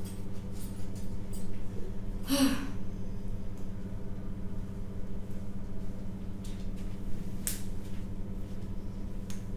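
Room tone: a steady low electrical hum with a stack of even overtones. A short breathy hiss comes about two and a half seconds in, and a brief sharp click about seven and a half seconds in.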